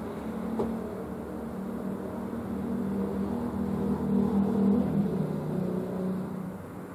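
Engine of a passing motor vehicle: a hum that grows louder toward the middle, then drops in pitch and fades near the end.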